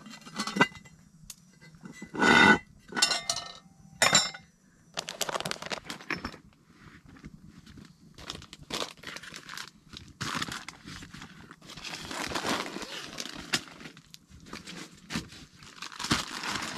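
Camp cookware being handled: metal clinks and a loud clank with a short ring about two seconds in, and another knock soon after. Then comes rustling and crinkling as a soft bag is rummaged through and items are pulled out.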